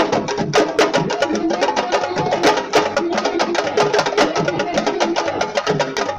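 Fast, dense drumming with many quick hand strikes, in the style of Senegalese sabar drumming that accompanies wrestling dances.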